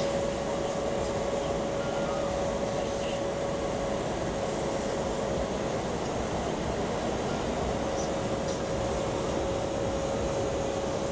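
Powder-coating booth air noise while loose powder is cleared off a wheel rim with an air or suction line. It is a steady rush with a constant thin whine, and the whine drops out for a couple of seconds past the middle.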